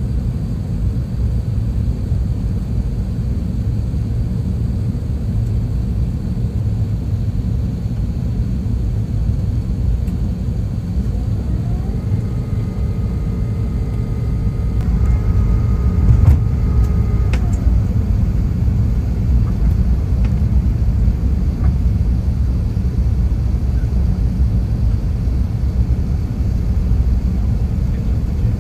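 Steady low roar of cabin noise inside an Airbus A380 airliner descending toward landing: the rush of air and the engines through the fuselage. For a few seconds near the middle a faint high whine joins in, ending with a couple of clicks.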